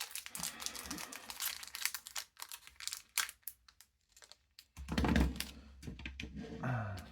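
Foil trading-card booster pack crinkling and tearing as it is opened, with quick clicks of cards being handled; a dull low bump about five seconds in.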